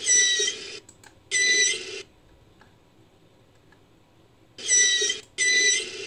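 Manatee-style calls made as a sound effect for an African manatee from recorded manatee sounds: four high-pitched calls in two pairs, one pair at the start and another about four and a half seconds in.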